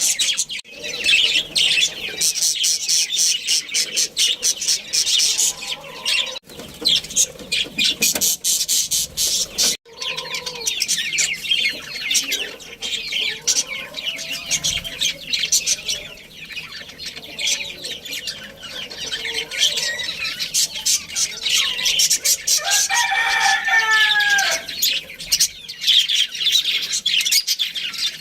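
A colony of budgerigars chattering and chirping continuously, a dense busy warble of many birds at once, broken by two brief cuts in the first third. Near the end a single lower, drawn-out call with a falling pitch stands out over the chatter.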